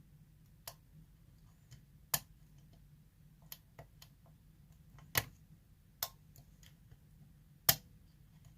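Small, sharp metallic clicks of a hook pick and tension bar working the pins of a Tesa TE5 euro cylinder, irregularly spaced, three of them louder, about 2, 5 and 7.5 seconds in. Single-pin picking: pins being lifted and set at the shear line, with tapered driver pins that keep dropping back.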